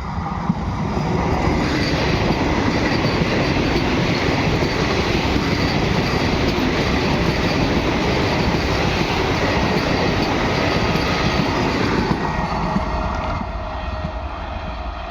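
Express train passing at high speed on the track, wheels clattering over the rails with a loud rushing noise. The noise builds over the first couple of seconds, holds steady, then eases off near the end as the train goes by.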